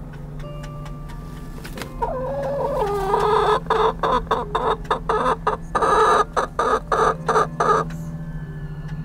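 Chicken calling loudly for about six seconds, starting about two seconds in: a wavering, pitched call that breaks into quick repeated clucks about three a second before stopping near the end. A steady low hum runs underneath.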